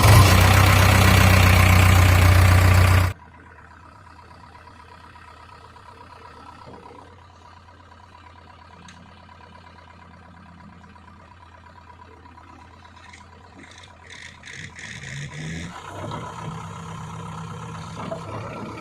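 Diesel engine of heavy earthmoving machinery running steadily, growing louder near the end. It opens with a loud rushing noise for about three seconds that cuts off suddenly.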